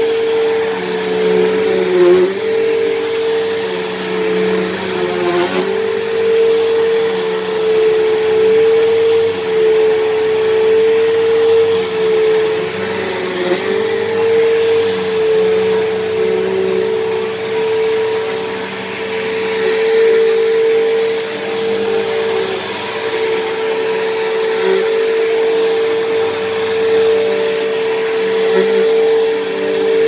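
Bissell PowerTrak Revolution bagless upright vacuum running on a carpet rug, its motor holding a steady whine that dips briefly in pitch a few times. The owner puts its sound down to the machine having sat unused for a long time, perhaps in its bearings.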